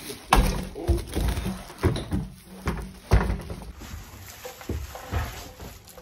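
Irregular thumps and knocks as a large plastic-wrapped accumulator vessel is handled and bumped while being lifted through a loft hatch, the heaviest about half a second and three seconds in.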